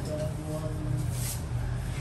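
Damp sponge wiped across glazed wall tiles to clean off grout haze, a soft swish about a second in, over a steady low hum and faint music with short held notes.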